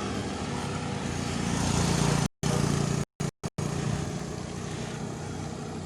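A vehicle engine running under road and wind noise, building a little over the first two seconds. Around the middle, the sound cuts out abruptly to silence four times in quick succession, like spliced clips.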